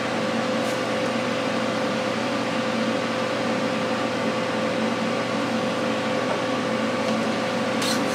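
Steady hum and whoosh of an electric fan running, with a constant tone under an even hiss.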